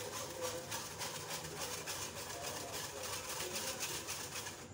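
Flour being sifted through a stainless steel mesh sieve, a spoon rubbed round inside it to push the flour through: a rhythmic scratchy rasping of metal on wire mesh, several strokes a second.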